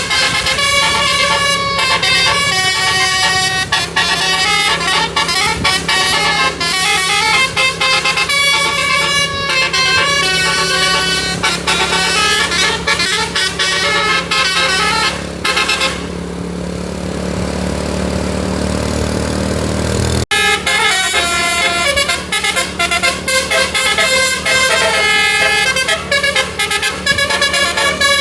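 A bus's multi-tone telolet (basuri) air-horn set plays quick stepping melodies over and over. For a few seconds past the middle the horns fall silent and the bus engine is heard pulling, rising in pitch, before a sudden cut brings the horn melodies back.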